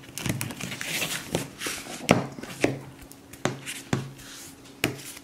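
Felt-tip marker tapping and scratching on paper over a tabletop as a capuchin monkey draws, a string of sharp, irregular taps about one or two a second.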